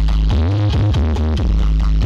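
Loud electronic dance music with very heavy bass and gliding synth notes, played at high volume through a big stacked-speaker carnival sound system.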